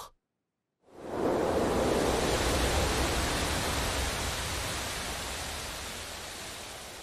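A sudden rush of wind sweeping over a wheat field, starting about a second in: a loud, even hiss with a deep low rumble beneath it that slowly dies away.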